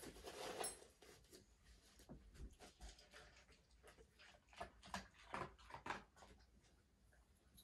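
Near silence with faint, irregular clicks and small rustles as a dog is hand-fed treats and chews them, with a slightly louder rustle at the very start.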